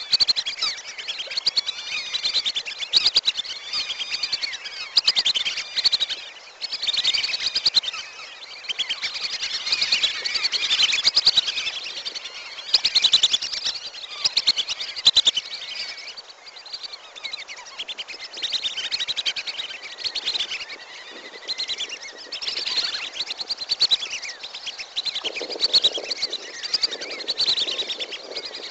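Wandering whistling ducks calling as a flock: a dense, continuous chorus of overlapping high whistles and twitters, played as a lure call.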